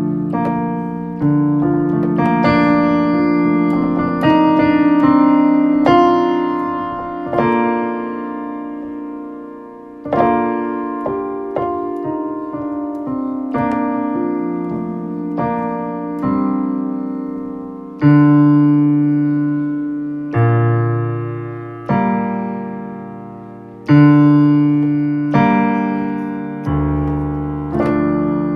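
Solo improvised piano: slow chords struck every two seconds or so, each ringing and fading before the next.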